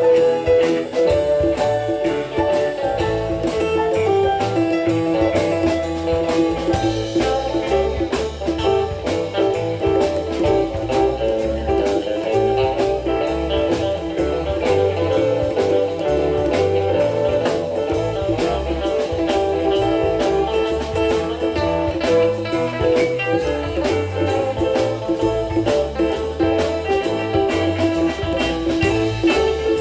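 Rock band playing an instrumental jam: guitar lines over a moving bass line and steady drums, with no vocals.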